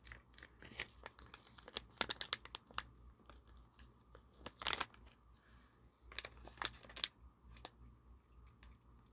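Plastic gummy-candy pouch crinkling and crackling as it is handled, in irregular bursts that are busiest in the first few seconds and again about five and seven seconds in, then thin out to a few faint ticks.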